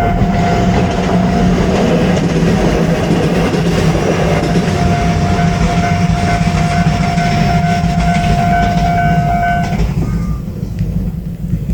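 An electric train runs past at a Japanese level crossing, its wheels rumbling and clattering over the rails, while the crossing's warning bell rings steadily. The bell stops a little before the end, and the train noise falls away after it.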